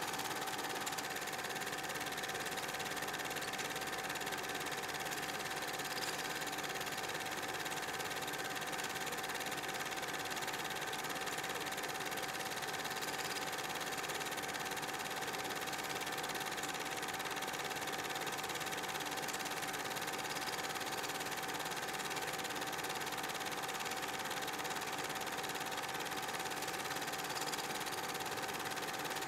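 Super 8 film projector running: a steady mechanical whirr with a constant whine, unchanging throughout.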